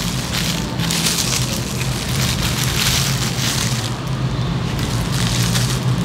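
Plastic gloves rustling and crinkling in irregular surges as hair is combed and wound onto perm rods, over a steady low hum.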